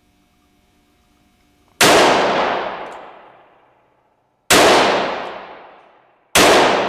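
Three handgun shots, about two to three seconds apart. The first comes about two seconds in and the last near the end, and each rings out for about two seconds in the echoing indoor range.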